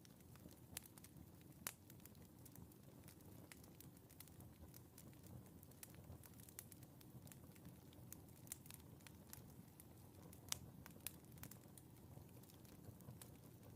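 Wood fire in a fireplace crackling faintly: a low, steady rush of flames with irregular sharp pops, a few of them louder.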